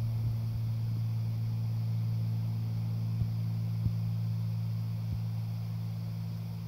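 Steady low machine hum, with a few faint ticks about three, four and five seconds in.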